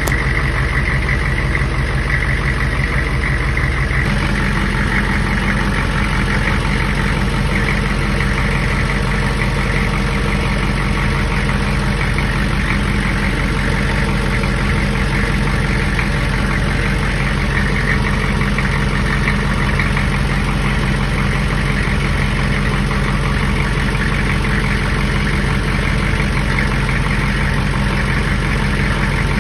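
Hummer H1's diesel V8 idling steadily, a constant low engine hum.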